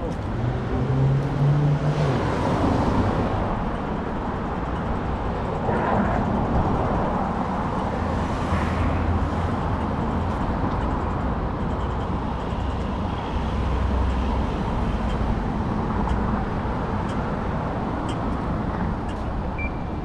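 City street traffic: vehicles passing with low engine hums that swell and fade, over steady tyre and road noise.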